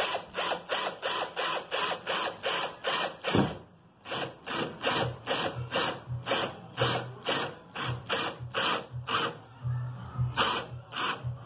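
Cordless drill run in short, quick bursts, about three a second, boring holes in a fiberglass hood for hood pins. There is a brief pause a few seconds in, then the bursts come more slowly.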